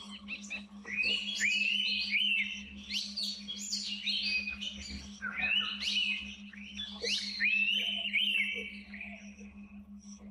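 Bird song in the forest: repeated phrases of quick, gliding whistled notes, a new phrase every one and a half to two seconds, over a steady low hum.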